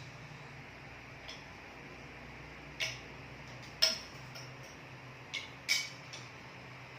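Cutlery clinking against plates during a meal: several sharp, separate clinks, the loudest a little before the middle, over a faint steady hum.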